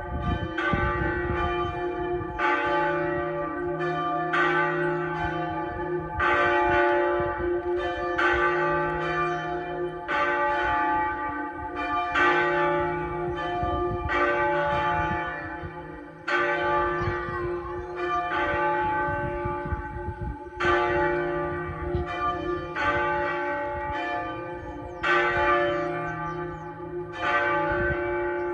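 Pershore Abbey's church bells ringing, only a few of the ring in use, struck one after another in a repeating sequence of about one to two strikes a second, each stroke ringing on into the next.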